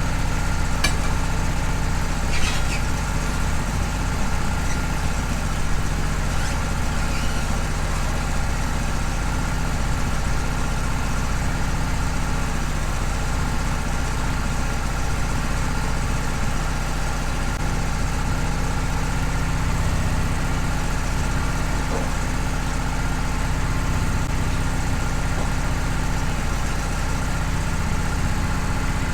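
Wood-Mizer LT15 band sawmill's gasoline engine running steadily at an even speed, with no change in pitch.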